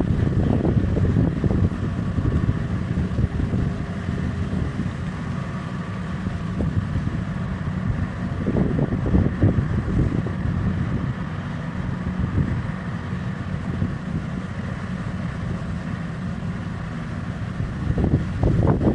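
Heavy mining machinery running with a steady low diesel rumble, wind buffeting the microphone in louder gusts near the start, about halfway and near the end.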